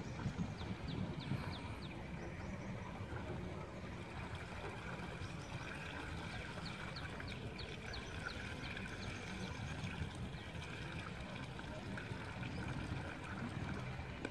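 River water sloshing and trickling around a person wading and lifting plastic bottle traps out of the water, over a steady low rumble. Rows of faint, short high chirps come twice.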